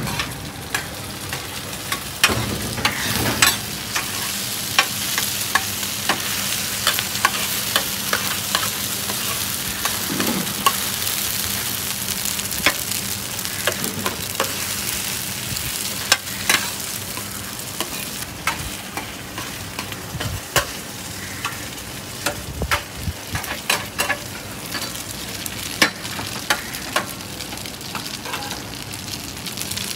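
Oyster omelette of egg and oysters frying in a large black pan, sizzling steadily. A metal spatula scrapes and clacks against the pan many times as it is worked.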